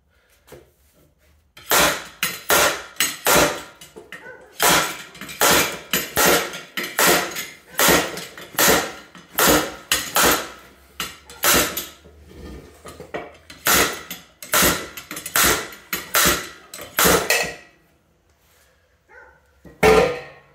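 Slide hammer bolted to a car's wheel hub by the lug nuts, its weight slammed against the stop again and again in very loud, sharp metallic clanks, about two a second with a couple of short pauses, to knock the wheel hub loose. One last clank comes near the end.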